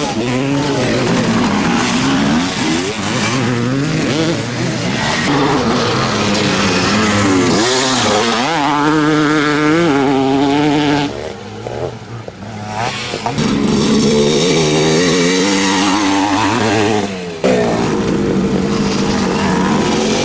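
Classic motocross motorcycles racing, engines revving hard with pitch climbing and dropping through the gears. The engines fade to a lull around the middle, then come back loud.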